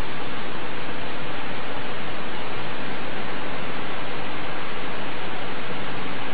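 Loud, steady hiss that does not change, with nothing else standing out over it.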